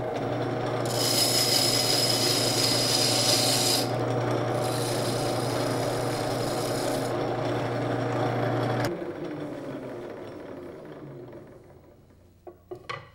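Rim lathe running with a steady hum while its tool bit takes a light final cut in the spinning wooden banjo rim, a loud hissing scrape in two passes. The motor is switched off about nine seconds in and spins down, and a few light clicks follow near the end.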